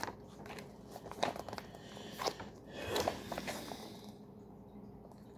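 MRE ration pouches and packaging rustling and crinkling as they are handled and pulled out, with a string of sharp crackles that thicken about three seconds in and stop about a second later.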